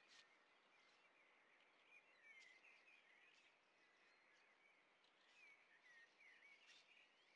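Faint chirping of small songbirds, many short twittering notes over a soft steady hiss, with a few faint clicks.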